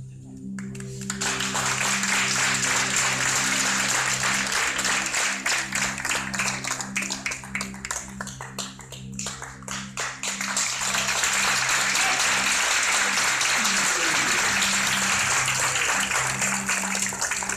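Audience applauding, starting about a second in, easing off in the middle and rising again, over background music with a low, steady pulsing drone.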